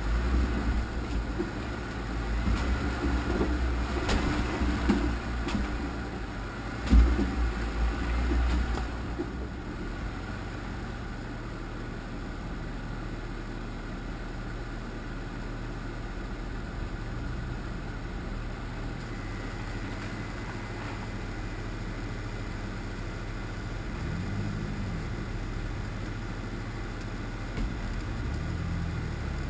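Off-road vehicle engine running at low speed while crawling over a rocky trail. For the first nine seconds the ride is rough, with knocks and jolts from the rocks and one loud thump about seven seconds in. After that the engine drones more steadily, with two brief revs near the end.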